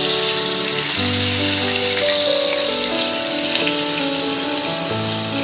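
Marinated salmon fillet sizzling steadily as it shallow-fries in hot oil in a nonstick frying pan. Background music plays over it.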